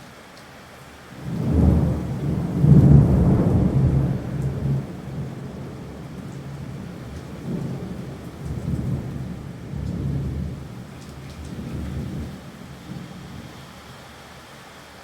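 Steady rain with a long roll of thunder: the rumble swells about a second in, is loudest around three seconds, then rolls on in weaker waves and fades out near the end.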